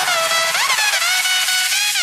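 Background electronic music: a synth melody with sliding notes, carrying no bass in this stretch.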